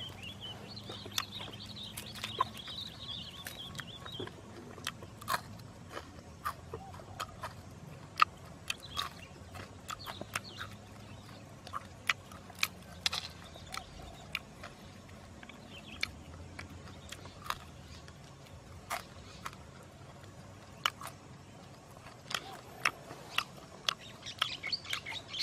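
Close-up eating sounds: irregular sharp clicks and smacks from chewing and tearing apart grilled lizard meat. A bird chirps in the background near the start and again briefly later.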